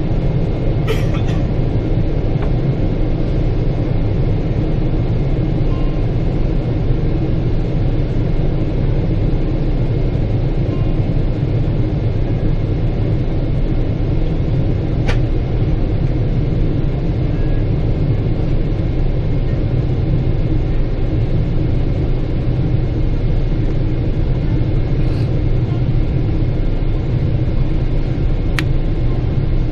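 Steady low rumble of a Boeing 777-300ER's cabin in flight, a constant mix of engine and airflow noise, with a few faint ticks.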